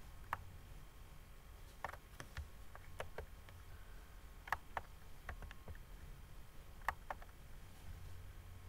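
Computer mouse clicking: a dozen or so short, sharp, irregular clicks over a low steady hum.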